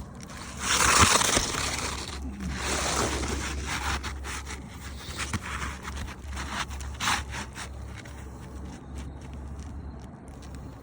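Scraping and rustling on asphalt roof shingles, with the loudest scrapes about a second in and again around three seconds, then scattered light clicks and crackles.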